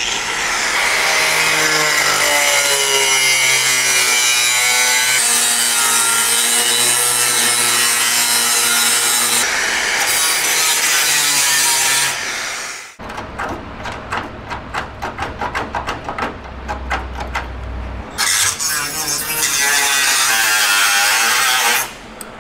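Small cut-off tool's abrasive wheel cutting rusted sheet steel, running loud and steady with its pitch wavering as the wheel bites. About halfway through it breaks into quick, stuttering short cuts for several seconds, then makes one more steady cut that stops shortly before the end.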